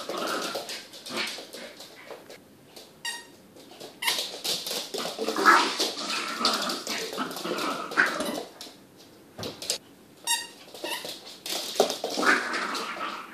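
Small puppy play-growling in repeated bouts, with short gaps between them, during a game of fetch.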